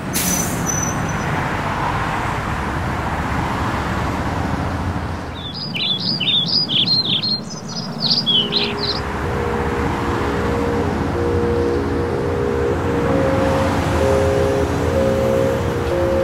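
Steady outdoor street noise, with a bird chirping a quick run of calls about five seconds in; from about eight seconds in, music of held, repeating chords comes in over it.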